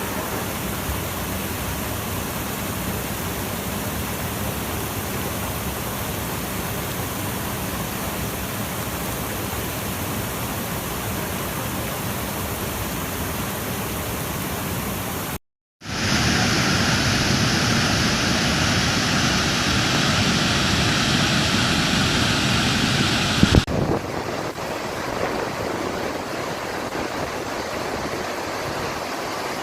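Waterfall water rushing in a steady roar. About halfway through it cuts out for a moment and comes back louder and brighter, then after a sharp click it turns to a softer, duller rush.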